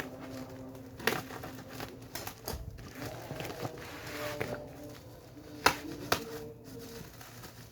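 Scattered clicks and knocks with some crinkling as a new Bosch grinder and its packaging are handled, with two sharper knocks about a second in and near the six-second mark.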